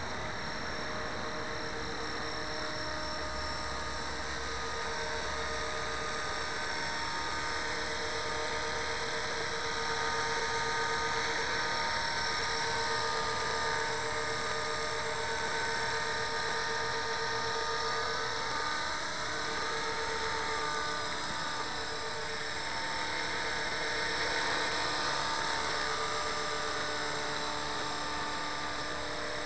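450-size electric RC helicopter flying: the brushless motor, gears and rotors give a steady high whine that wavers a little in pitch now and then.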